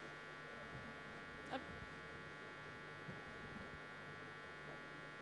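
Steady electrical buzz and hum from the stage sound system, with one faint click about a second and a half in.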